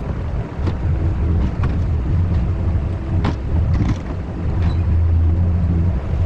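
Skid steer engine running steadily under load, with several sharp knocks and clanks over it.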